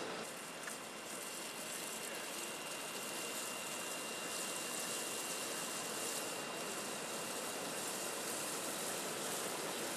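Fire engine running at the scene with its water pump working: a steady rushing hiss, with a thin high whine that comes in just after the start.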